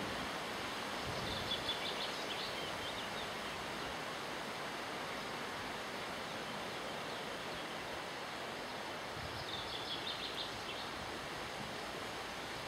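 River water flowing with a steady rushing. Brief high chirps come twice, about a second in and again about ten seconds in.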